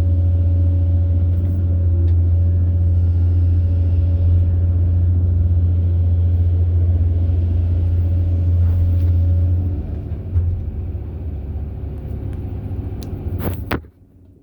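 Hitachi 870 excavator's diesel engine running with a steady low drone, easing off about ten seconds in. A brief sharp clatter near the end, after which the sound drops away.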